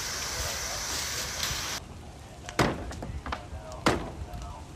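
Fire hose spraying water with a steady hiss, which cuts off abruptly; then two sharp blows of a firefighter's hand tool striking a wooden fence, a little over a second apart.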